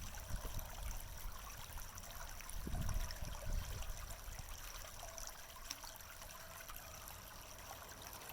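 Fast-moving shallow creek water running and rippling, with a low rumble swelling near the start and again about 3 seconds in.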